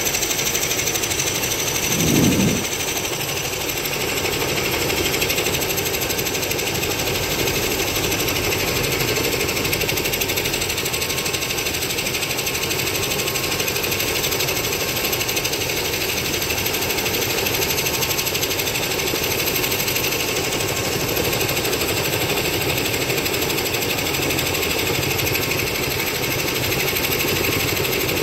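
Helicopter running steadily: a loud, even, fast mechanical chatter of engine and rotor that does not let up. A short, louder low sound stands out about two seconds in.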